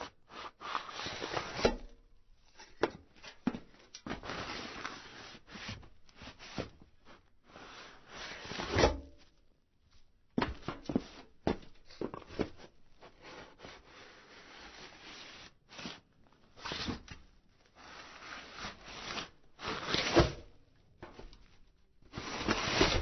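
A person moving about on a metal roof: irregular footsteps, scuffs and sliding scrapes on the sheet metal, with a few heavier knocks, about nine seconds in and again about twenty seconds in.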